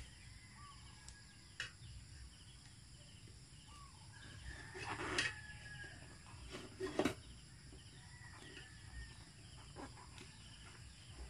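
Faint birds and chickens calling in the background, with two short knocks about five and seven seconds in as a spoked motorcycle wheel and its tyre are handled.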